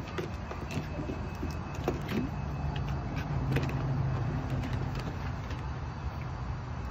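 Patterdale terrier puppy splashing and scrabbling in a plastic tub of water: short knocks and splashes against the plastic throughout, over a steady low hum.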